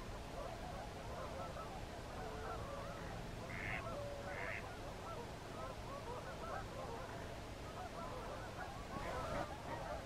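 A large flock of waterfowl calling, many overlapping calls in a continuous chorus, with two higher, sharper calls close together about three and a half seconds in. A brief rush of noise near the end.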